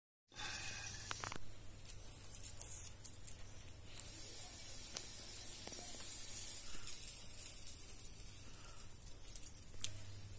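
Food sizzling in a frying pan: a steady high hiss with a few faint clicks, growing stronger about four seconds in.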